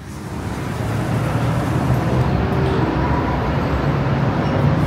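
Steady low rumble of distant city traffic heard from high up, swelling over the first second and then holding even.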